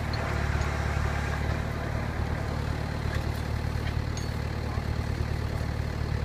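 A 4x4 vehicle's engine idling, a steady low drone.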